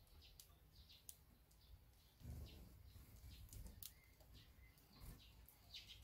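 Faint, short high-pitched chirps of small birds, scattered through, with a soft low thud a little over two seconds in.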